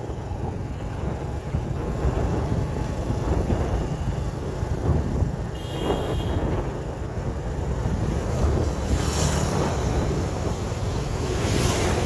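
Wind buffeting the microphone over the steady noise of busy street traffic, with a brief high tone about six seconds in and vehicles swishing past twice in the second half.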